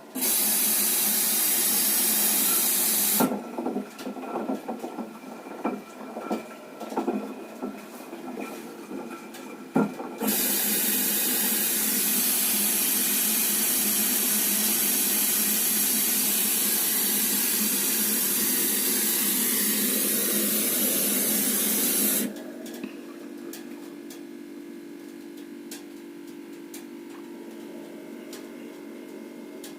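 Washing machine taking in water: a loud steady hiss of water spraying in through the inlet valve, which stops twice and starts again. Between the two fills come irregular knocks and splashes, and after the second fill stops, only a low steady hum is left.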